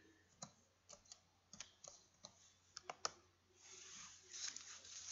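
Faint, irregular clicks of computer keys, about a dozen in three seconds. A soft hiss swells in near the end.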